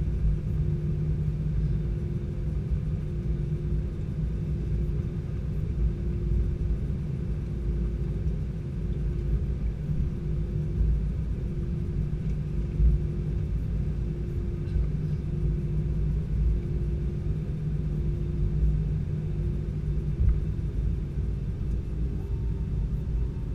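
Airbus A320-214's CFM56 engines idling as the airliner taxis, heard inside the cabin: a steady low rumble with a hum. A faint higher tone joins near the end.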